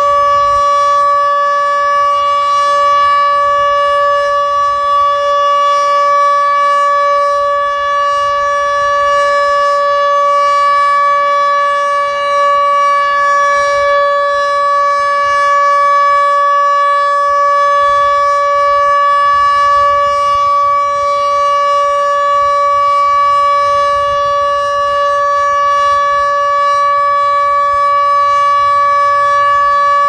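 Electromechanical outdoor warning siren, which the uploader takes for a Federal Signal Model 2, sounding the Alert signal: one loud, steady tone held without rising or falling.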